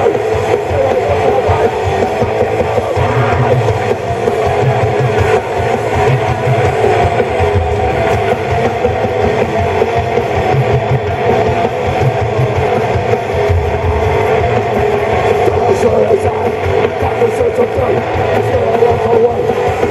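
Punk band playing live: electric guitars and drums, loud and continuous, heard from the crowd.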